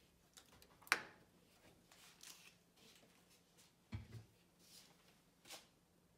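Near quiet, broken by a few scattered small clicks and knocks: a sharp click about a second in, a soft low thump about four seconds in, and a fainter click near the end.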